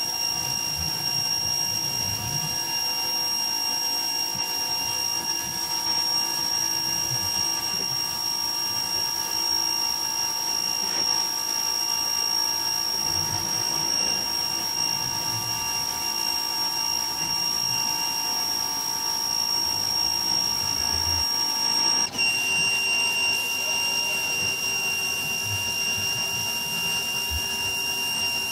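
Ryobi electric pressure washer running, its motor and pump giving a steady high whine over the hiss of the water jet, with a brief dip in the sound about three quarters of the way through.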